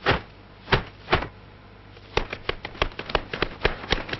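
A run of sharp knocks: a few spaced well apart, then from about halfway a quick, uneven series of about five or six a second.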